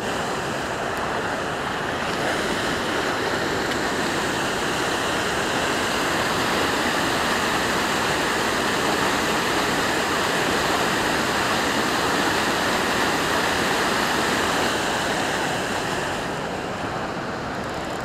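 Water pouring over a low river dam, a steady rush of churning whitewater that eases off slightly near the end.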